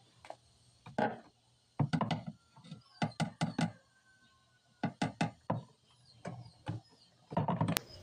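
Screwdriver clicking and knocking against the pulleys and drive belt of a washing machine while the belt is pried off, in short clusters of sharp knocks about every second.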